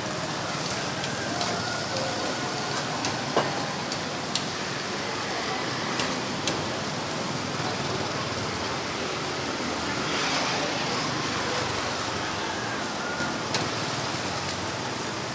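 Skewers of meat and sausage sizzling over a charcoal grill, a steady hiss, with a few sharp clicks of metal tongs against the skewers and grill grate.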